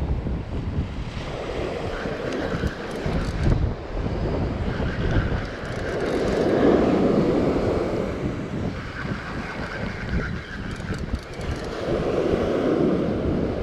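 Wind buffeting the microphone over surf, with waves washing up in a swell about six seconds in and again near the end.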